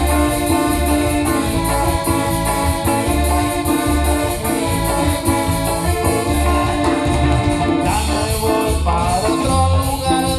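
Latin dance band playing live, amplified, with a steady beat of bass and cymbals under held melody notes.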